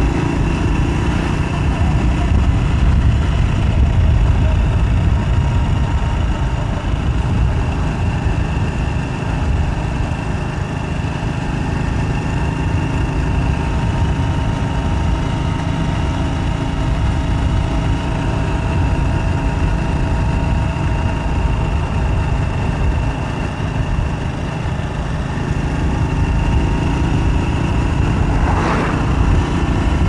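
Road traffic heard from among the vehicles: car and motorcycle engines running over a constant low rumble, swelling a little near the end.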